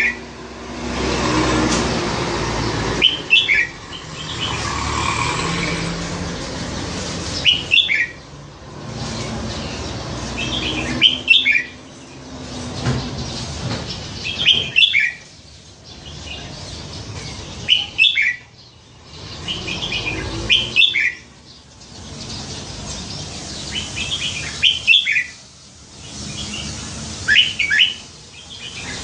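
Caged red-whiskered bulbul singing short song phrases, one about every three to four seconds, over a low background rumble.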